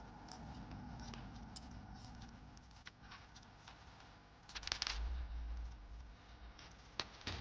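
Handling noises: scattered light clicks and scratches over a low rumble, with a heavier rub and thump about two thirds of the way in and a sharp click near the end.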